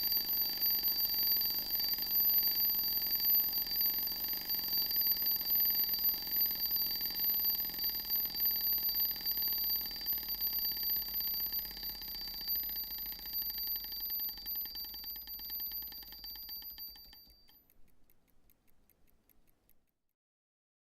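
Raketa Mini wind-up alarm clock's bell ringing with fast, even hammer strikes. It fades gradually and cuts off about 17 seconds in, followed by a few last weak strikes as the alarm spring runs down.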